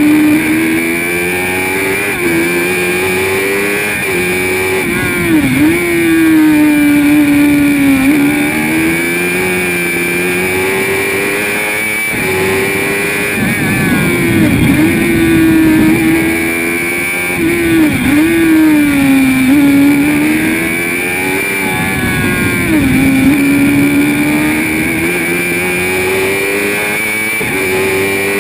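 Spire GT3 race car's engine heard from the cockpit at racing speed, its pitch climbing and falling through the gears with several sharp dips, over a steady high whine.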